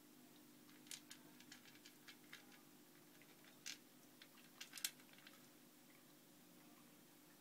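A cat crunching dry kibble from a plastic bowl: faint, irregular crisp clicks from about a second in until about five seconds in. Beneath them runs the low steady hum of a Catit pet water fountain's pump.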